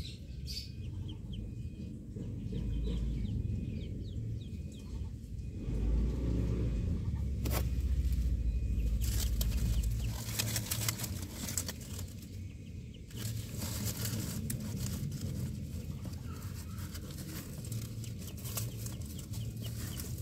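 Dry leaves and sacking in a nest crackling and rustling as a hand reaches in among the eggs, mostly in the second half, over a low rumble of handling noise. A chicken is clucking in the background.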